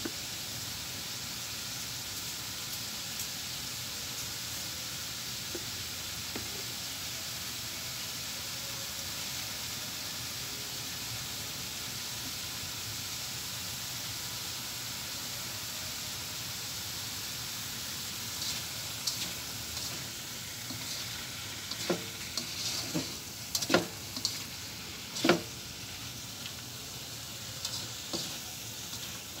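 Chopped pechay (bok choy) stems frying in oil in a pan with a steady sizzle. From about two-thirds of the way in, a spatula stirs them, clacking and scraping against the pan in a run of sharp knocks.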